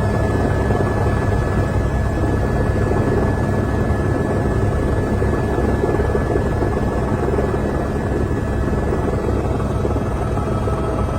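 Helicopter in flight: the rotor thrumming with rapid, even pulsing and a steady high turbine whine over it, holding constant.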